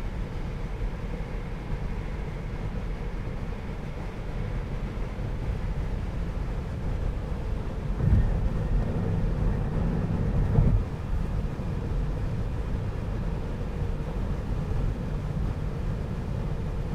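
Road and tyre noise inside the cabin of a Tesla Model 3 driving at highway speed on a wet road: a steady low rumble that swells louder for about three seconds midway, then settles back.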